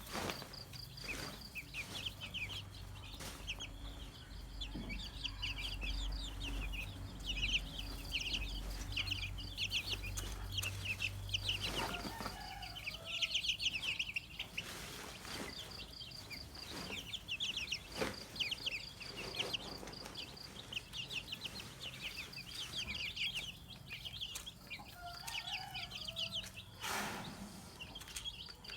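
A group of young domestic chicks peeping constantly, many short high-pitched cheeps overlapping. A few sharp knocks are heard among them.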